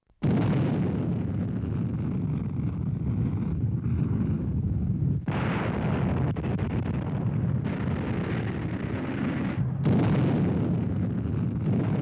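Guided missiles' rocket motors firing at launch: a deep, noisy rumble that starts suddenly, then starts afresh with a new blast about five seconds in and again near ten seconds, three launches in a row.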